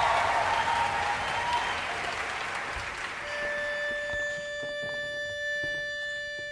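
Audience applause dying away, then a barbershop pitch pipe sounds one steady reedy note for about three seconds that cuts off sharply, giving the quartet its starting pitch.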